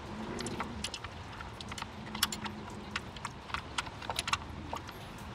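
Small box-end wrench clicking and clinking on the 8 mm hold-down bolt of a camshaft position sensor as it is lifted off and refitted again and again, tightening the bolt a bit at a time. The clicks are irregular, several a second.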